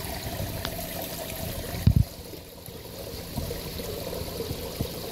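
Live-well aerator spray bar pouring a steady stream of water into the tank. There is a low thump about two seconds in.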